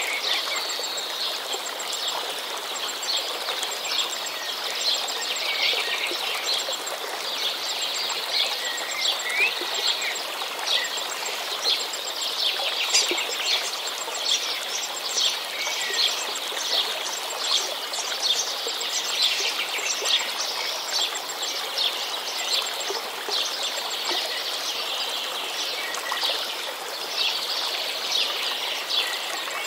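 Many short bird chirps and calls over a steady rush of running water, an outdoor nature ambience.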